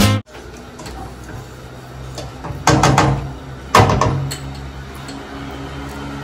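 Cookware clattering at the stove: a quick run of knocks near the middle, then a sharper knock a second later that dies away, over a steady low hum.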